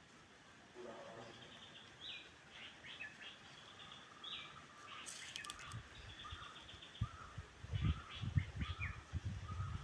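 Birds chirping in short repeated calls, with a quick cluster of sharp taps about five seconds in and low irregular bumps in the last few seconds.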